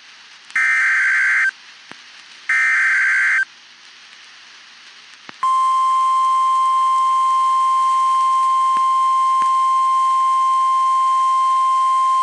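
NOAA Weather Radio emergency alert signal: two short bursts of screechy digital SAME header tones about two seconds apart. A couple of seconds later the steady 1050 Hz warning alarm tone starts and holds. Together they signal that a warning message, here a tornado warning, is about to be broadcast.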